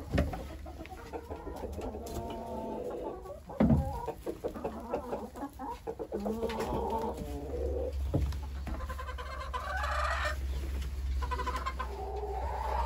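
Chickens clucking and calling, with a longer rooster call about nine seconds in. A few sharp knocks, the loudest a few seconds in.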